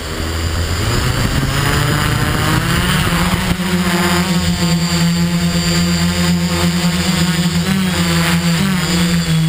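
Multirotor drone's electric motors and propellers spinning up for takeoff, the pitch rising over the first three seconds or so. It then settles into a steady buzzing hum as the drone climbs, with a few brief pitch wobbles near the end.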